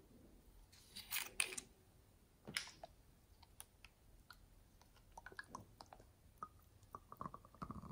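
Small plastic bottle handled, with a few sharp plastic clicks about a second in, then a run of faint sticky clicks and squelches as thick liquid slime pours from its neck onto soft slime.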